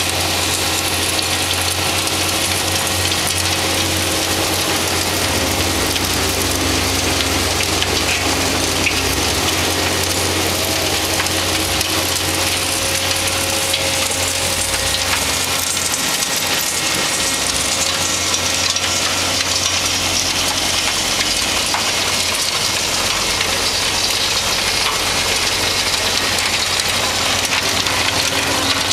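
Backers star screen running steadily: the drone of its Perkins diesel engine and screening deck, with a constant hiss of screened compost pouring off the conveyors onto the piles.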